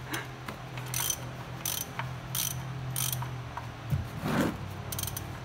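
Hand socket ratchet clicking in short strokes, about one every two-thirds of a second, as a plug is backed out of the transmission case for draining, with one dull knock about four seconds in.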